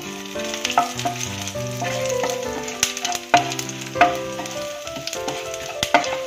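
Whole spices sizzling in hot oil in a pan as they are stirred with a wooden spatula, which gives a few sharp knocks against the pan. Background music plays along.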